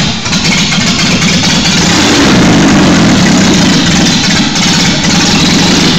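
Freshly rebuilt Triumph TR4 four-cylinder engine running loudly on its first start, fed a squirt of fuel into the carburettor intakes. The revs rise and fall a little about halfway through, and it dies abruptly at the end.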